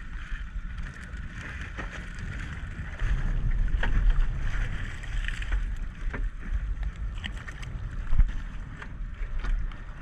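Wind rumbling on the microphone over water splashing and dripping as a wire crab drop net is hauled up out of the water on its rope, with a few light knocks and clicks from the net. The splashing is loudest a few seconds in.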